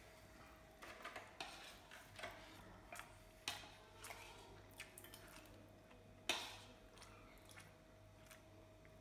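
Quiet eating sounds: fingers squishing and mixing rice and curry on a plate, with a scattered series of short clicks and mouth sounds, the loudest a sharp click about six seconds in. A faint steady hum sits underneath.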